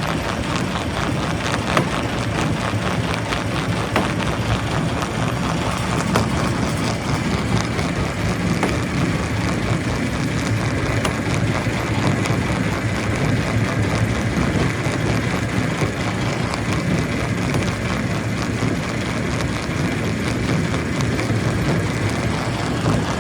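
Quarry primary rock crusher running, with rock knocking and clattering constantly over the steady machine noise. A high steady whine joins about a third of the way in.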